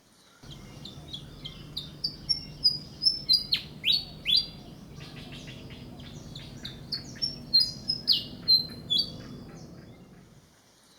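Malaysian pied fantail singing: a lively run of short, squeaky high notes mixed with quick downward-sweeping whistles, stopping shortly before the end, with a steady low hum beneath.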